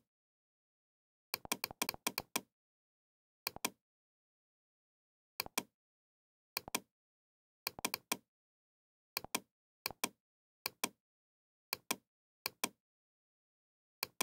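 Computer mouse clicking, mostly in quick press-and-release pairs every second or two, with a short flurry of clicks about a second and a half in.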